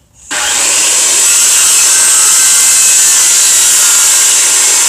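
Corded handheld circular saw cutting through pallet boards: it starts suddenly about a third of a second in, then runs loud and steady as the blade works through the wood.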